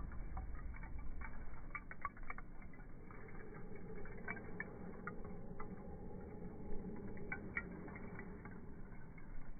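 Small wood fire crackling: irregular sharp pops and snaps of burning wood over a low steady rumble.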